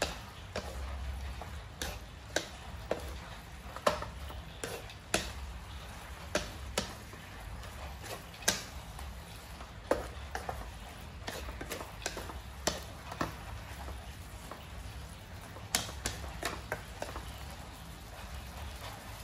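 Spatula scraping and knocking against a metal wok as noodles and vegetables are tossed in a stir-fry, with a faint sizzle and a low hum underneath. The knocks come irregularly, one or two a second, and stop a couple of seconds before the end.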